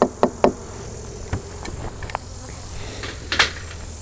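Honey bees buzzing steadily around an open hive, with a quick run of sharp knocks at the start and single knocks about a second in and near the end as the hive's wooden equipment is handled.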